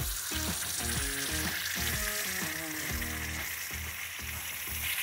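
Water jetting under 80 PSI pressure through a 3/32-inch orifice plug into a plastic measuring jug, a steady hiss of spray and churning water, with background music over it.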